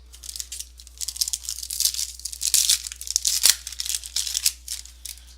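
A foil trading-card pack wrapper being torn open and crinkled, a dense, crackly rustle that builds about a second in and dies away near the end.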